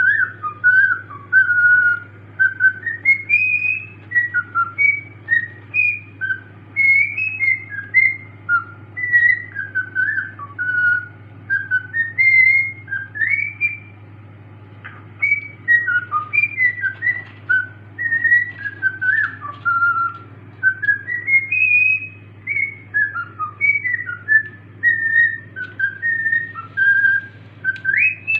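Cockatiel whistling a tune: a long run of short, clear whistled notes that rise and fall in pitch, with a brief pause about halfway through. A steady low hum runs underneath.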